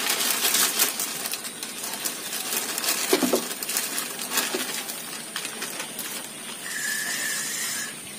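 Scattered light metallic clicks and rattles from handling a spinning rod and reel, over a faint steady hiss, with a thin high steady tone for about a second near the end.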